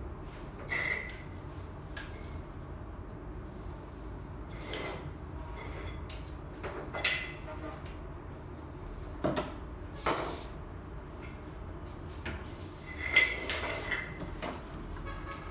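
Scattered clatters, knocks and light scrapes from hand work and cleanup, a few seconds apart, with the loudest clatter about thirteen seconds in.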